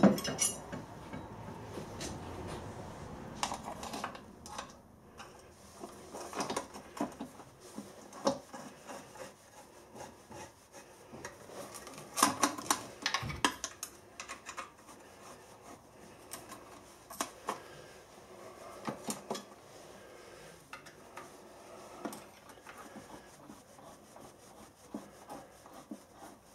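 Hands working on fittings and a metal-braided oil line at a milling machine's one-shot lube pump: irregular small metallic clicks, taps and rubbing. It opens with a sharp knock and a low hum that fades over the first few seconds.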